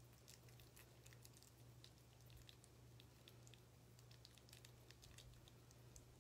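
Near silence: a steady low hum with faint, scattered small clicks and ticks.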